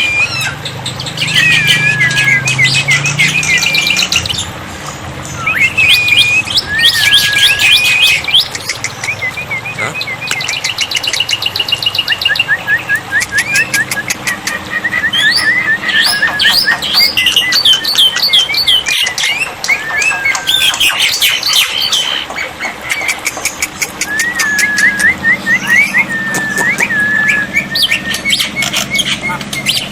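Black-winged myna (jalak putih) singing: loud whistled notes that sweep up and down, rapid runs of repeated chattering notes and harsh calls, in phrases with short pauses between them.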